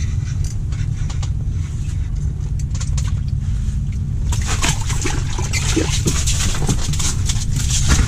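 A steady low rumble throughout, with quick clicks and rustles of a spinning reel and ice rod being handled from about four seconds in.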